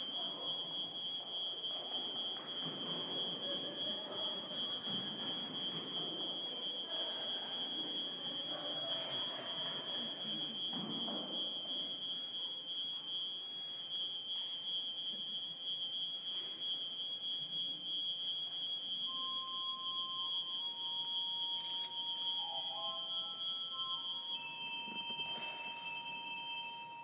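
Low murmur of an audience in a large, echoing church, with a steady high-pitched tone held throughout. In the last third, soft, sustained pipe organ notes come in and step from pitch to pitch.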